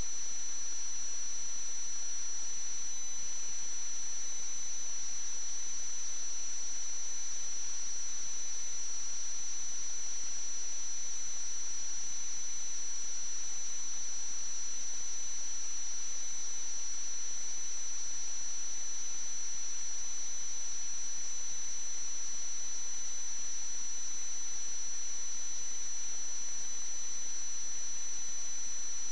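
Steady electronic hiss with a constant high-pitched whine, the noise of the sewer camera's recording unit while it has no camera signal.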